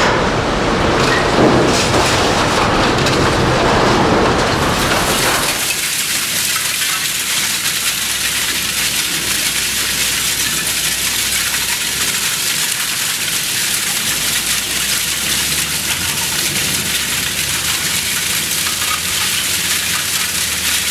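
A scrap-metal shredder grinds scrap in its feed chute, a dense, loud clatter with a heavy low end. About five seconds in, this gives way to a steady high hiss of shredded metal pieces pouring down onto a pile of shreds, sounding like heavy rain.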